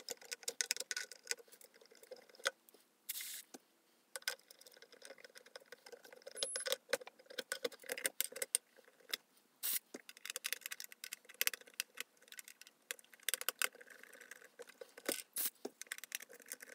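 Small scattered clicks, clinks and rattles of glass vacuum tubes and metal tube shields being worked in and out of their sockets on a Fender Vibro Champ amplifier chassis while the sockets are cleaned. There is a short hiss of contact-cleaner spray about three seconds in.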